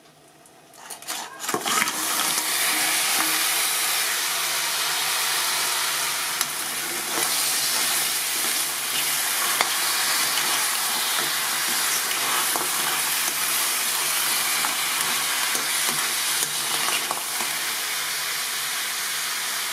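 Mud crab pieces sizzling in hot oil and spice masala in a kadai as they go in and are stirred. The sizzle builds over the first couple of seconds and then holds steady, with occasional light scrapes and clicks of the spoon against the pan.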